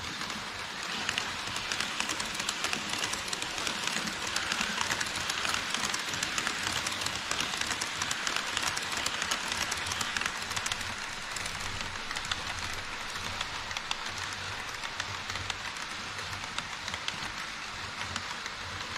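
HO scale model trains, an E5 series Shinkansen and a container freight train, running on KATO Unitrack past the microphone: a dense, fast clicking rattle of metal wheels on the track joints with a low motor hum underneath. It builds up about a second in and eases off over the second half.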